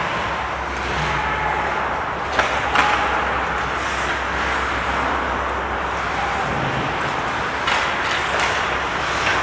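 Ice hockey skates scraping and hissing across the rink ice, with a few sharp clacks.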